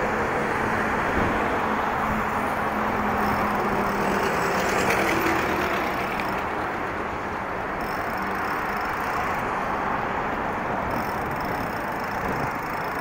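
Steady noise of traffic on a wide multi-lane city avenue, with cars, vans and trucks passing.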